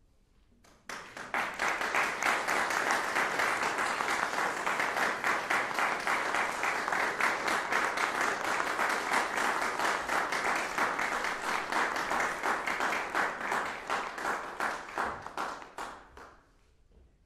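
Audience applauding: dense clapping that starts suddenly about a second in, holds steady, and dies away near the end.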